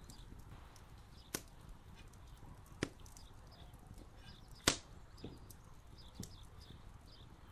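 Raw lamb rib pieces being laid by hand into a metal tray of vegetables: a handful of scattered sharp knocks and taps, one much louder about two-thirds of the way through, over a quiet steady background.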